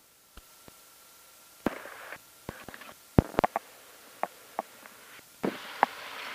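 Aviation headsets being handled and put on: a dozen or so sharp, irregular clicks and knocks, with two short stretches of rustling, one after about a second and a half and one near the end.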